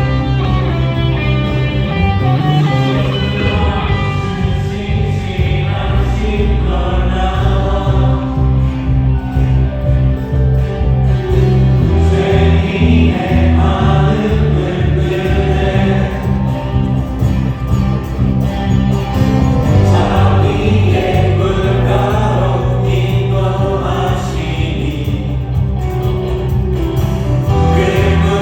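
Live worship band of keyboard, electric guitar, bass guitar and drums playing a praise song, with a group of voices singing together.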